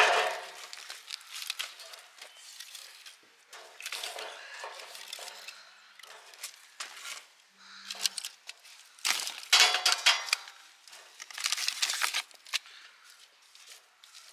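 Split firewood being laid and shifted in a black metal brazier: irregular knocks and clatter of wood on wood and metal, with some rustling. The loudest bursts come right at the start and again around nine to twelve seconds in.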